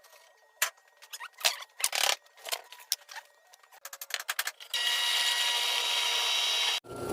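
Tools and metal parts being handled on a workbench: scattered clicks and knocks. Then, about four and a half seconds in, a loud, steady, hissing machine noise that lasts about two seconds and cuts off suddenly.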